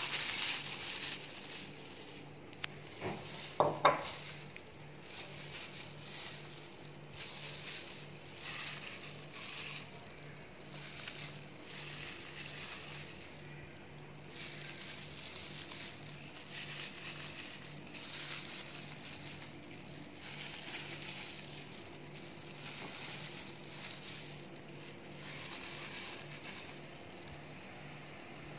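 Disposable plastic food gloves crinkling and rustling as hands pick up and lay noodles, herbs and meat into a bowl, in uneven swells. Two sharp knocks about four seconds in. A faint low hum pulses steadily underneath.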